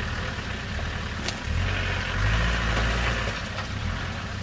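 Land Rover Discovery's engine working under load as it climbs out of a muddy water hole, swelling in the middle as the driver gives it more throttle, with the tyres churning through mud. A single sharp click about a second in.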